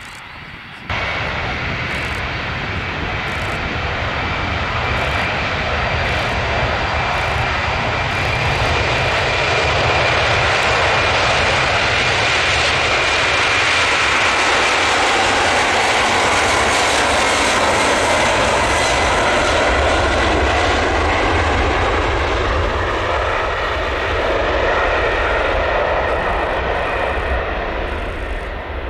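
Four GE CF6-80C2 turbofans of a Boeing 747-400 freighter at takeoff power on the takeoff roll: a loud jet roar that comes in abruptly about a second in, builds as the jumbo passes close with a steady high fan whine over the middle, then eases as it rolls away.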